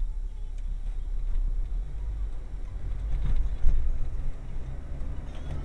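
Car driving through town, heard from inside the cabin: a steady low engine and road rumble, with a couple of short knocks a little past halfway.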